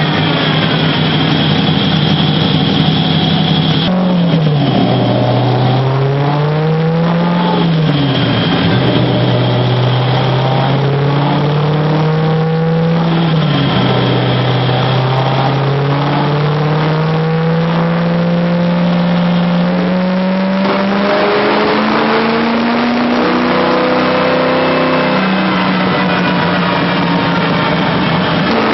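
Engine running under load, its pitch climbing and then dropping abruptly at each of several gear changes, with a long slow climb in the second half.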